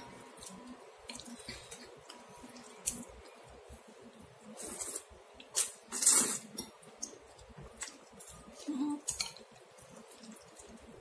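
Instant ramen noodles being lifted and stirred in broth with chopsticks and a ceramic spoon: wet squishing and dripping, with small clicks against the bowl and a louder wet burst about six seconds in.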